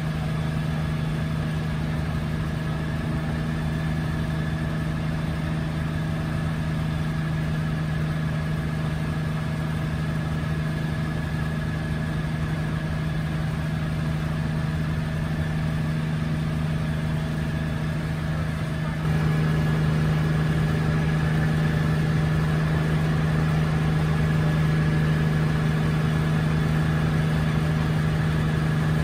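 1962 Hiller UH-12E helicopter in flight, heard from inside the cabin: its Lycoming VO-540 piston engine and rotor running with a steady, even drone. About two-thirds of the way through the sound jumps abruptly louder and holds there.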